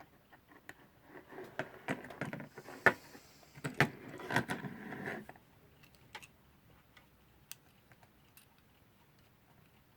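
Small metal clock movement parts being handled and fitted together: a run of light clicks and rattles with a couple of sharper clicks in the first half, then a few isolated faint clicks.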